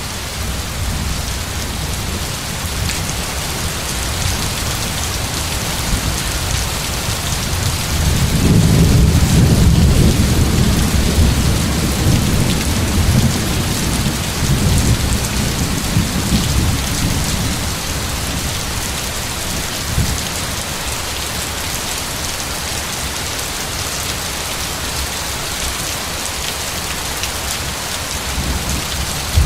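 Steady rain falling, with a long low roll of thunder that swells about eight seconds in and dies away over the next ten seconds or so.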